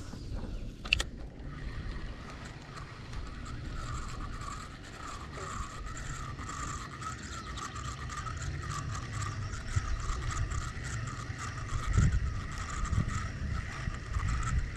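A spinning fishing reel being cranked to retrieve a lure: a click about a second in as the bail closes, then a steady gear whirr that swells and dips with each turn of the handle.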